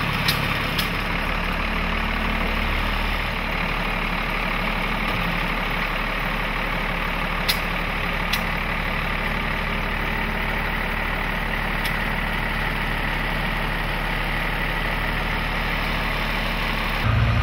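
1991 Dodge Cummins inline-six turbodiesel in a 1941 International truck idling steadily, with a few light clicks. Just before the end it gets louder and deeper.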